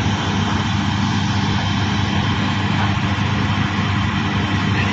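Heavy diesel machinery of a hydraulic drilling rig running steadily: a constant, loud, low engine drone with machinery noise over it.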